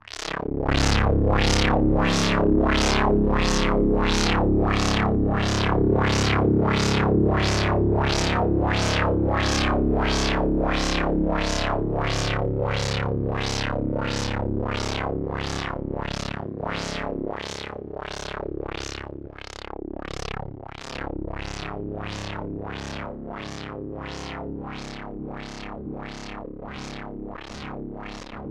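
Raw image data played back as audio after being processed with Audacity's phaser and wah-wah effects: a dense, buzzy synthetic drone swept rhythmically about one and a half times a second. It grows quieter from about halfway through.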